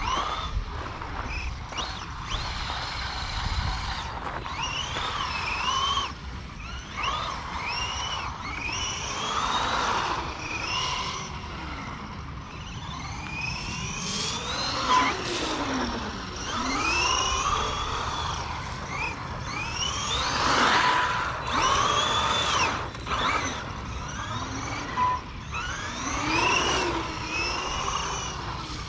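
Redcat Camo TT Pro RC truck's brushless motor whining, its pitch sweeping up and down over and over as it accelerates and slows, over the hiss of its tyres spraying through standing water.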